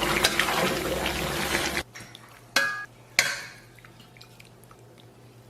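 Stew bubbling and being stirred with a spatula in an iron pot, stopping abruptly after about two seconds; then two sharp clinks of utensil or dishware against metal.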